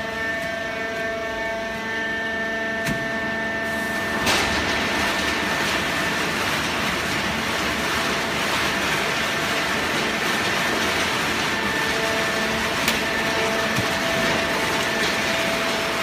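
Fully automatic horizontal waste-paper baler running, its machinery giving a steady whine of several tones. About four seconds in a click is followed by a louder, steady rushing noise that carries on.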